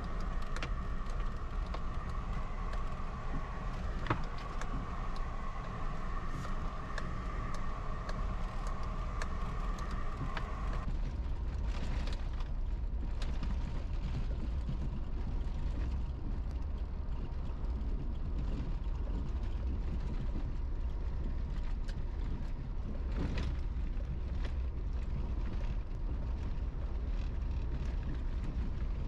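Car driving, heard from inside the cabin: a steady low rumble of engine and road with scattered knocks and rattles. A steady whine sounds over it for about the first ten seconds, then cuts off.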